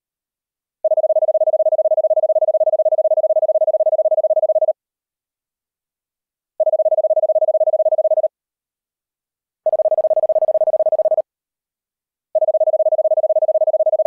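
Morse code CW tone of about 650 Hz passed through a narrow bandpass filter, keyed on in four long steady tones: the first about four seconds, the others shorter, with silent gaps between. The third tone sounds brighter and buzzier, with higher overtones.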